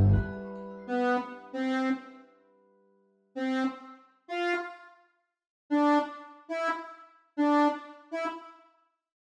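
A full beat with heavy bass breaks off at the start, leaving a lone synth-keys melody played back from the piano roll: about eight separate notes, each struck and fading away, in loose pairs with silent gaps between.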